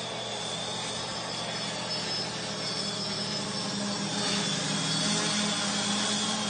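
NXP HoverGames quadcopter's electric motors and propellers making a steady buzzing hum in flight. It grows louder a little past the middle as the drone comes closer.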